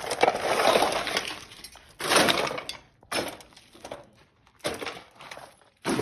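Garage clutter being moved and shoved around: clattering and scraping in several noisy bursts, a long one at first, then shorter ones about two, three and five seconds in.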